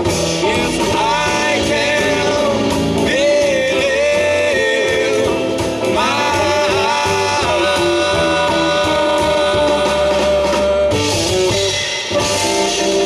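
Live blues band: a harmonica played through the vocal mic in long held, bending notes over electric guitar, upright double bass and drum kit.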